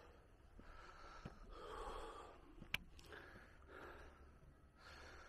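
A man breathing hard and fast, out of breath from climbing a steep hillside; the breaths are faint. One sharp click about halfway through.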